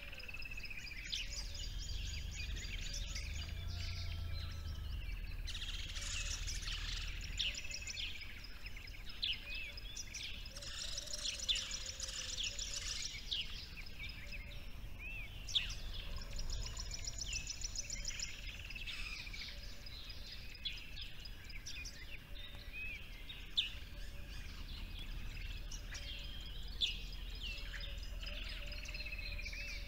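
Several small songbirds chirping and singing, with rapid high trills repeated several times, over a low steady rumble.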